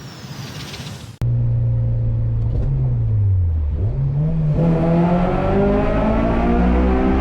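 A car engine revving, cutting in suddenly about a second in after a rising whoosh, its pitch falling and then climbing again.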